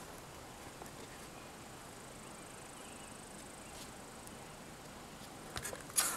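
Faint steady outdoor background with a thin, high, steady insect-like buzz, and a few sharp clicks near the end.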